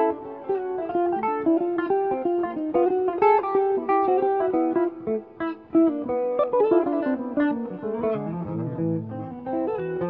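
Two jazz guitars playing a duet: plucked single-note lines weave against each other, with deeper bass notes coming in near the end.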